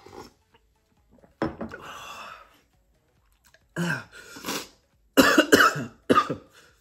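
A man coughing repeatedly from the burn of ghost-pepper-spiced soup. The coughs come in short harsh bursts, loudest and closest together in a cluster near the end.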